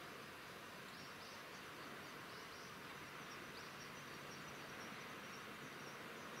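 Faint, steady outdoor background hiss with soft, high, short chirps of insects repeating throughout.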